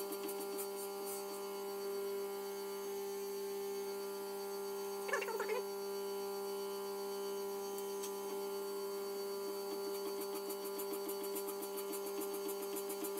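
Union tool and cutter grinder running with a steady hum. Faint rhythmic ticking from the cup wheel grinding the endmill's end at the start and again from about ten seconds in, with a brief squeak about five seconds in.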